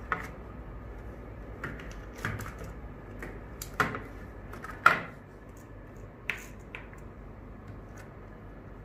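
Irregular sharp clicks and light knocks of a plastic-cased controller board and its plug-in terminal connectors being handled and shifted on a wooden table, about eight in all, the loudest two near the middle, over a low steady hum.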